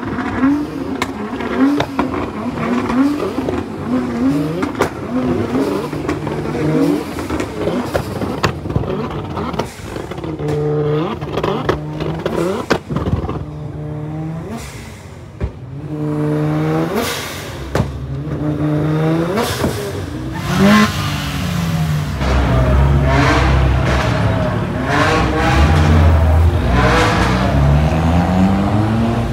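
Performance car engines revving hard again and again, the pitch climbing and falling, with sharp exhaust pops and cracks between revs. About three-quarters of the way in, a deeper, heavier engine sound takes over and runs on loudly.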